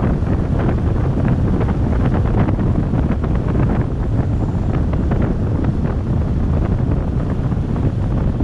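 Wind rushing and buffeting over the microphone of a moving pickup truck, with a steady low rumble of road and engine noise underneath.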